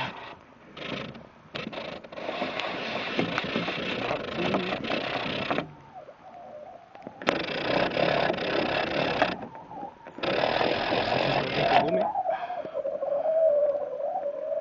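Fly reel's ratchet check clicking in three long runs of several seconds each while a salmon is played on the line. Near the end a wavering hum takes over.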